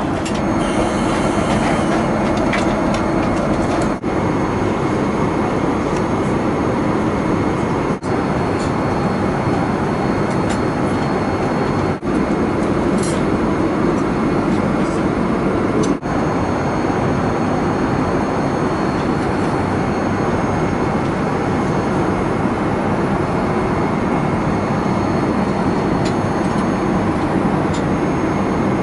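Steady cabin noise of a Boeing 787-8 airliner in flight: an even rush of airflow and engine noise, with brief dips in loudness about every four seconds.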